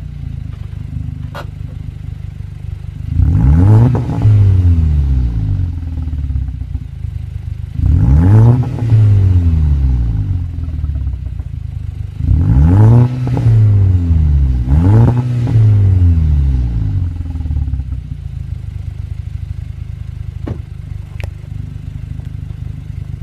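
Volkswagen Golf 6 R's Stage 2-tuned turbocharged four-cylinder idling, then revved four times at standstill through a full 3-inch turboback exhaust: APR downpipe and high-flow cat, Milltek non-resonated catback. Each blip rises sharply and falls back to idle; the last two come close together.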